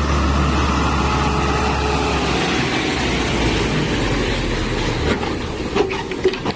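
Loaded log truck's engine running as it works down a slippery mud track, a steady low drone under dense mechanical noise, with a few knocks and rattles near the end.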